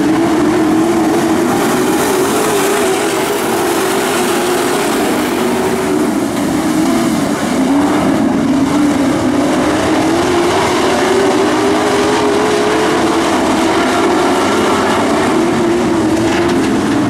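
A pack of dirt-track pro trucks racing around the oval, their engines running loud together, the engine pitch rising and falling as they go through the turns and down the straights.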